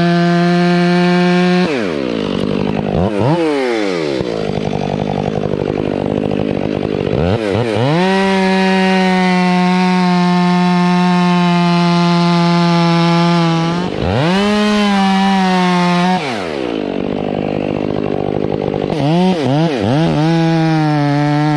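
Stihl MS 500i chainsaw cutting at full throttle through the base of a large tree trunk in a felling cut. The engine note sags and climbs again several times as the bar loads and frees in the cut, with a few quick throttle blips near the end.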